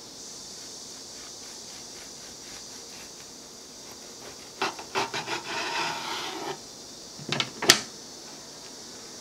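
Knife sawing through a bread sandwich on a wooden cutting board: a run of rough scraping strokes for about two seconds, then a few sharp knocks, the last the loudest.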